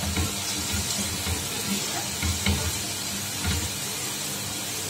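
Onions, garlic, dried red chillies and cumin seeds sizzling in hot oil in a metal pot, with a steady hiss. A wooden spoon stirring them knocks and scrapes against the pot in short, irregular thumps.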